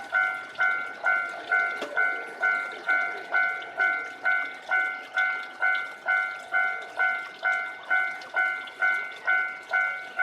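Japanese level-crossing warning bell ringing: a clanging tone repeating steadily a little over twice a second, each stroke dying away before the next. It is the warning that a train is approaching the crossing.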